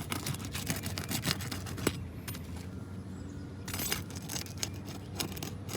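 A metal roof snake scraping and clicking against asphalt shingles as they are lifted to reach the nails, with a short lull about halfway through, over a steady low hum.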